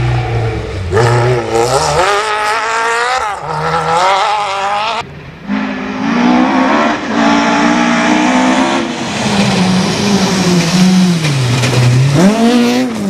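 Millington Diamond four-cylinder rally engine driven hard, its revs repeatedly climbing and then dropping with each gear change. About five seconds in the sound changes abruptly to another car, which runs at steadier revs before dropping and picking up again near the end.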